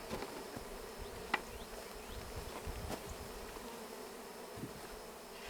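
Steady hum of many honeybees flying around an open hive during a nuc installation, with one light click about a second in.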